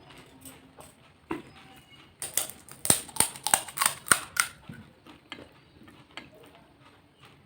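Crisp fried fuchka (pani puri) shells crunching in a quick run of about ten sharp cracks over two seconds, after a single crack just before.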